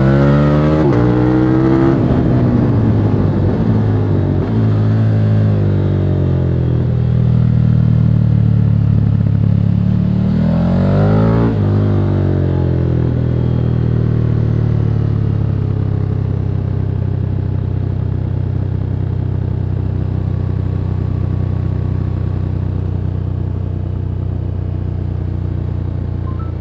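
KTM 1290 Super Duke R's V-twin engine through its stock exhaust. It accelerates hard with quick upshifts in the first two seconds, then the revs fall as the bike slows. About ten seconds in comes a short burst of throttle with one more shift, then it runs steadily at low revs, the pitch easing slowly down.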